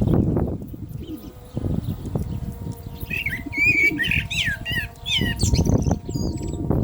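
Common blackbird singing: a phrase of quick, bending, warbling whistles starting about three seconds in. Under it runs a louder low rumble that is strongest at the start and again near the end.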